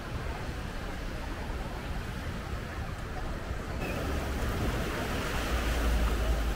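Ocean surf washing onto a sandy beach, swelling louder from about four seconds in.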